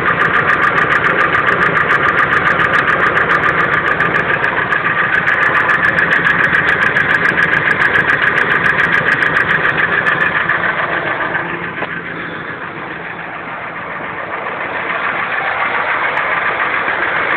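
1999 Ford F-150's 5.4-litre V8 idling with a rapid, even knock, which the owner suspects is from the lifters, rod bearings or main bearings. The knock grows fainter for a few seconds about two-thirds through, then comes back.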